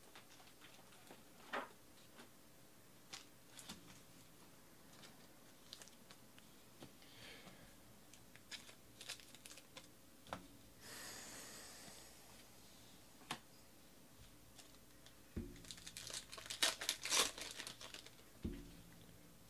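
Foil trading-card pack wrapper crinkling and tearing open, loudest in the last few seconds. Before it come scattered light clicks and a short rustle as cards and packs are handled.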